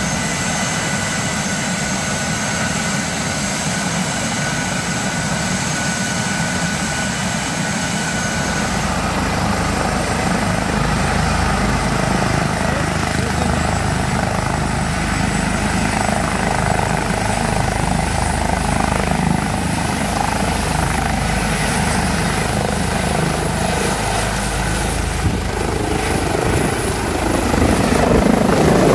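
Airbus H145M military helicopter running on the ground with its twin turboshaft engines whining and main rotor turning, spooling up to flight power. The low rotor noise grows heavier from about nine seconds in, and it gets louder still near the end as the helicopter lifts off.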